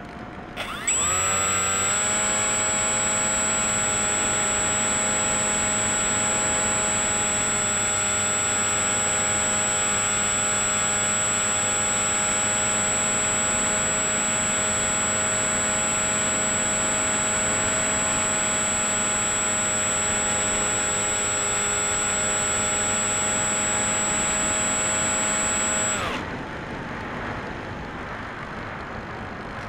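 Electric motor and pusher propeller of a Bixler 3 RC plane throttled up about a second in, a quick rise in pitch to a steady, loud whine held at a fixed pitch, then cut back near the end, leaving a softer rush of air.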